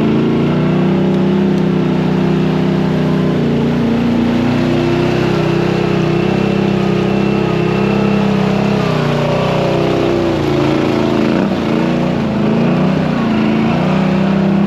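An off-road vehicle's engine running, its pitch rising and falling slowly as the throttle changes.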